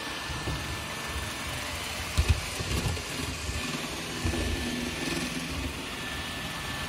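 Roomba 960 robot vacuum running across a wooden floor: a steady motor whir with a faint high whine. A couple of short low knocks come about two seconds in.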